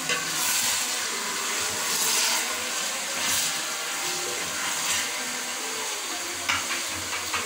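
Chicken, tomatoes and masala sizzling in a large aluminium pot while being stirred with a wooden spatula: a steady hiss that swells with each stir. Near the end, a few light clicks of a spoon against a bowl as yogurt is mixed.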